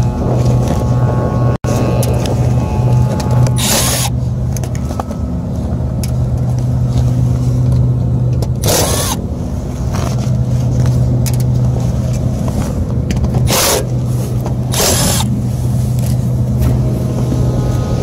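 Rooftop gas heating unit running with its blower on: a steady low hum, broken by four short bursts of rushing noise.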